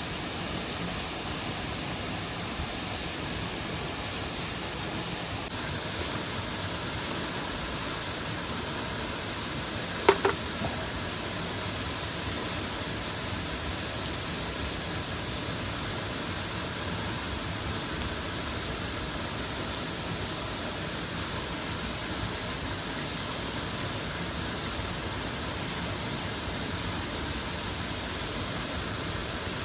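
Steady rush of a waterfall and mountain stream. About ten seconds in, a sharp knock sounds twice in quick succession with a short ring.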